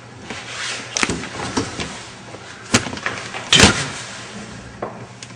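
A door knocking and banging: a sharp knock about a second in, another near three seconds, and a heavier slam-like bang about three and a half seconds in.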